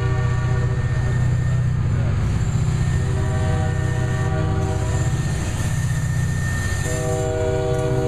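Lead EMD SD40-2 diesel locomotive sounding its multi-note horn in several blasts, the last and strongest starting about seven seconds in, over the steady throb of four two-stroke 16-cylinder EMD diesels working hard under load as the freight pulls out.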